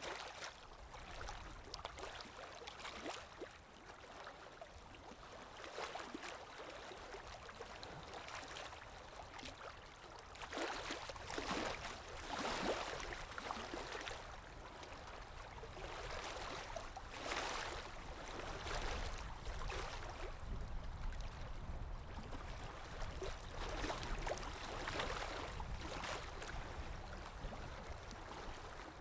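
Water sound effect: flowing, gurgling water that swells and ebbs irregularly, with louder surges every few seconds.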